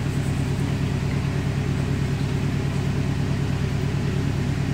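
A steady low mechanical hum, even and unchanging.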